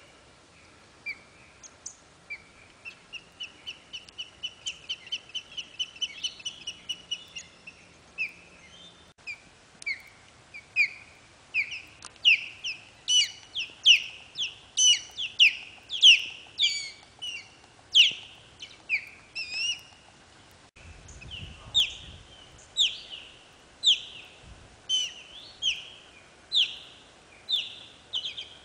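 Ospreys calling: a quick run of short, high whistled chirps, about four a second, then louder downslurred chirps repeated about twice a second.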